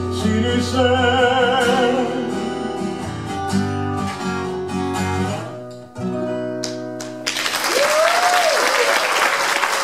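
Male voice holding the final sung note over acoustic guitar, the guitar ending the song with a few more chords and notes; about seven seconds in, the audience breaks into applause.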